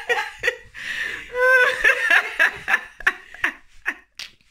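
Laughing hard in a rapid run of short bursts, dying down near the end.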